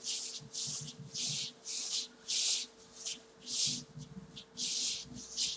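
Bare heels and legs sliding across a rubber exercise mat as the legs are swept open and shut, a rhythmic run of short swishes about twice a second.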